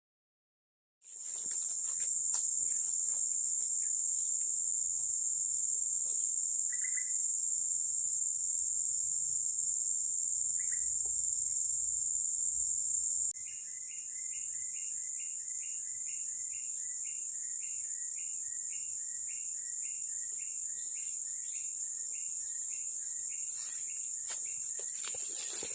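Steady, high-pitched chorus of insects such as crickets or cicadas. From about halfway, a second creature's short call repeats about twice a second.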